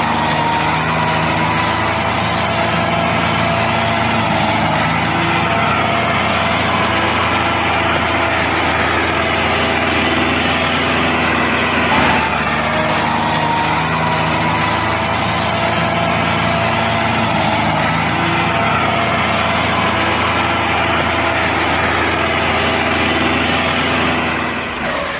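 Tractor engine sound running steadily, with a pattern that repeats about every two seconds; it cuts off suddenly at the end.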